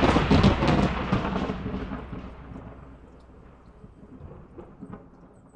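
Thunder: a sharp crack at the start, then a crackling rumble that dies away over about five seconds.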